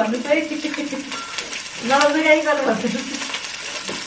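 A hotpot simmering on the table with a steady sizzling hiss, with a few light clicks of utensils against dishes. Low voices murmur twice over it.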